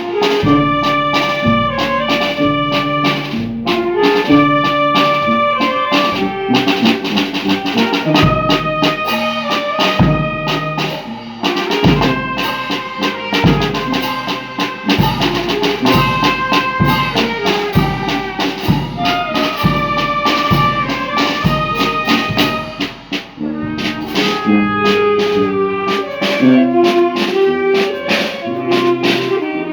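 Brass band playing a tune with a steady drum beat.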